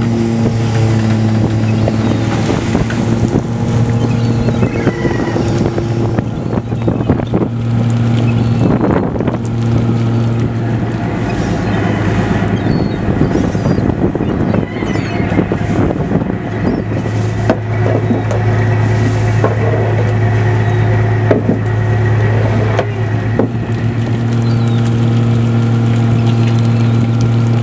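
A fishing boat's engine running with a steady low drone, easing in the middle and strong again near the end. Over it, a wet rustling and splashing with small clicks as a mass of herring slides across the deck and down the hatch into the hold.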